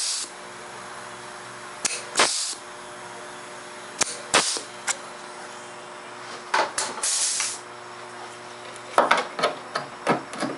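Flange-and-punch tool crimping a flange along the edge of a sheet-steel patch panel: irregular sharp metallic clicks and snaps in short clusters, twice with a brief hiss.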